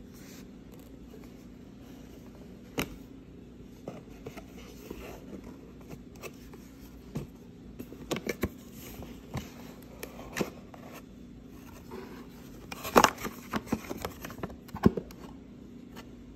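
Cardboard packaging being handled and opened: flaps and paper inserts rustle and scrape, with scattered taps and clicks, the loudest cluster near the end. A steady low hum runs underneath.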